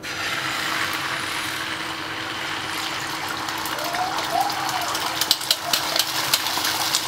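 Beaten egg sizzling in a hot oiled frying pan as it is poured in. Light clicks of a wire whisk against the cup come in near the end.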